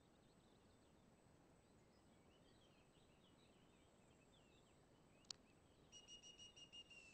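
Near silence in woodland, with faint small-bird chirps and then, near the end, a quick run of high whistled bird notes on one steady pitch. A single sharp click about five seconds in.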